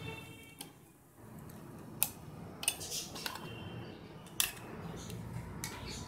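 Sharp plastic clicks and snaps as the plastic casing of a wireless PIR motion sensor is handled and opened, about six clicks spread irregularly over the few seconds.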